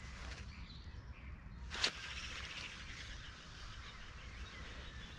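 Quiet open-air ambience with faint bird chirps, and one brief sharp noise about two seconds in from a fishing lure being cast.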